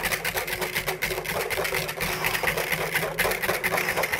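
Wire balloon whisk beaten fast in a glass bowl, whipping egg whites for meringue by hand: a rapid, steady rattle of wires clicking against the glass.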